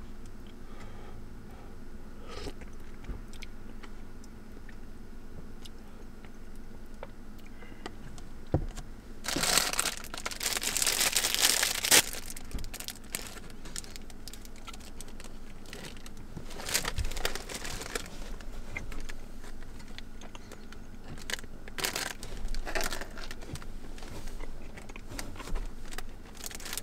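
Crinkling and rustling of something being handled, with scattered clicks and knocks. The loudest stretch of crinkling lasts about two and a half seconds, starting about nine seconds in, and a shorter one comes around seventeen seconds in.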